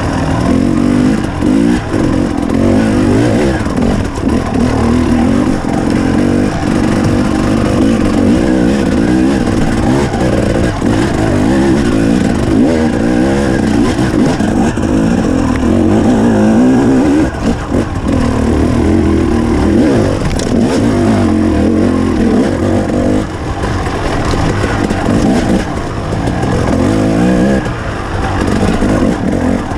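KTM 300 XC two-stroke dirt bike engine running under load, its pitch rising and falling again and again as the throttle is opened and rolled off, with a few short dips where the throttle is chopped.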